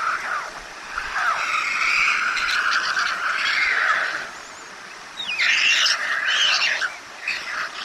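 White stork nestlings giving hoarse, wheezy begging calls while being fed at the nest, in separate bouts: a long one of about three seconds, then a shorter one, with a new bout starting near the end.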